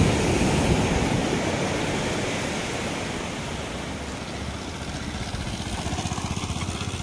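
Motorcycle engine running as the bike approaches and passes close near the end, its rapid exhaust pulses heard over a steady wash of surf and wind.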